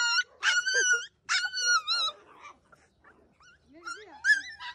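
Toy terrier whining in high, wavering cries, two long ones in the first two seconds, then softer whimpers; an excited dog greeting its owner.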